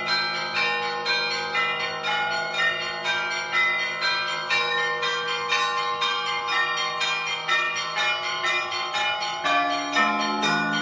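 Church bells ringing a rapid, continuous peal: several bells of different pitches struck about four times a second, over the sustained hum of a deeper bell.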